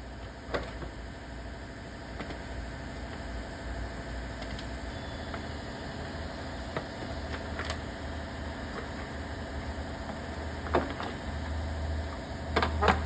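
Scattered sharp metal clinks of hand tools on bolts and the battery hold-down, a few seconds apart, with a close pair of louder clinks near the end, over a steady low hum.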